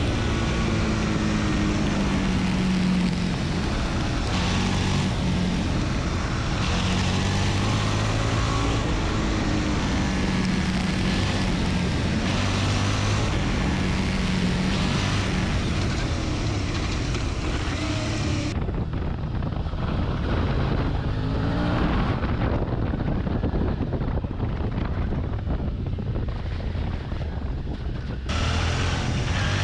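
Suzuki V-Strom 650's V-twin engine running under way, its note rising and falling, with wind noise on the microphone. The sound turns duller and less windy abruptly about two-thirds through and brightens again near the end.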